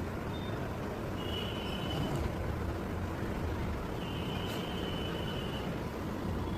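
Steady low background rumble, with a thin high tone twice, briefly about a second in and for longer around the fourth second.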